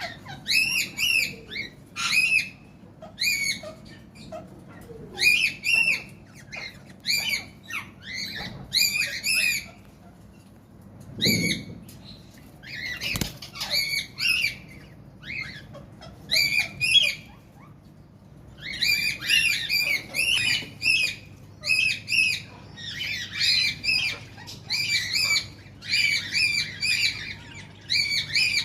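Budgerigars chirping: many short, arching calls in quick clusters, with two brief pauses along the way.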